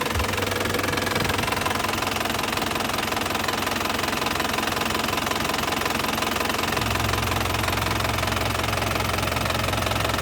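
A 2008 motorcycle engine running steadily at idle, its low note shifting slightly about seven seconds in. The engine is shown off as free of blow-by ("anti ngobos").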